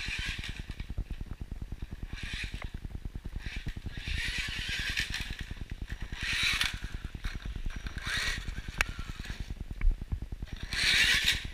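Axial Yeti XL RC rock racer driven in throttle bursts over mud and gravel: six or so bursts of motor and tyre hiss, with a fast steady ticking underneath. Its drivetrain is binding, which the owner took for a blown differential; it was a screw backed out of the diff cup.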